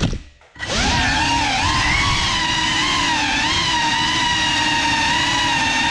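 Whine of a GEPRC Cinelog35 cinewhoop's brushless motors and ducted propellers. It cuts out for about half a second just after the start, spins back up, then runs on with its pitch wavering as the throttle changes.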